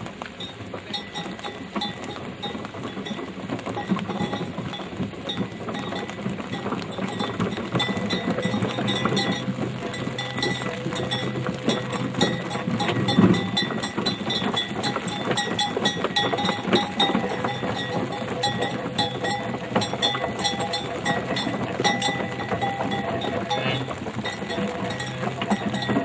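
Cowbells on cattle clanking and ringing without a break as a herd is driven along.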